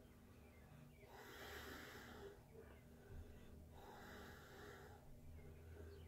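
Faint breathing of a man, two slow breaths each lasting about a second, over a low steady hum.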